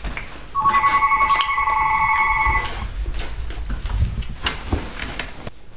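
Telephone ringing: one trilling electronic ring lasting about two seconds, followed by a few light knocks and rustles.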